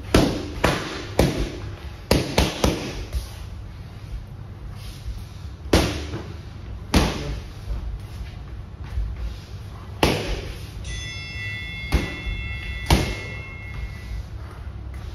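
Boxing gloves smacking into focus mitts: a quick flurry of punches in the first three seconds, then single hard punches every second or two.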